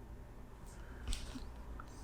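Small handling noises of hand-wiring a mechanical keyboard's switches, with one sharp click about a second in, over a low steady hum.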